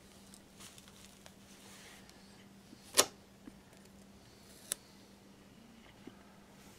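Hands handling a pierced porcelain basket: one sharp click about three seconds in and a lighter click a little under two seconds later, with faint rustling between. A steady low hum runs underneath.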